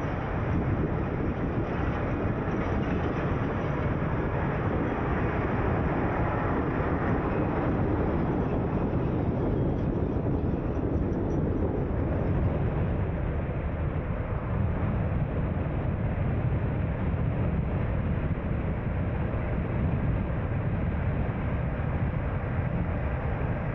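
A car driving through city traffic: a steady rumble of road and engine noise.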